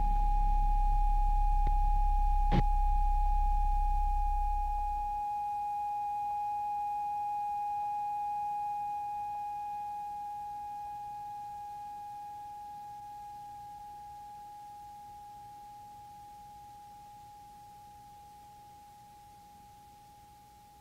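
A steady, pure electronic drone tone with faint overtones, slowly fading out. Two clicks come in the first few seconds, and a deep rumble under the tone cuts off about five seconds in.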